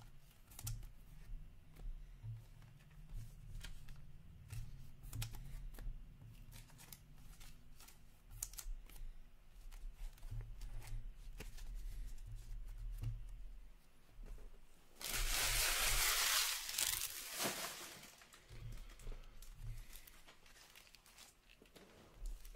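Trading cards being slipped into thin plastic sleeves and handled, with small clicks and crinkles of plastic. About fifteen seconds in there is a louder crinkling, tearing-like rustle that lasts about three seconds.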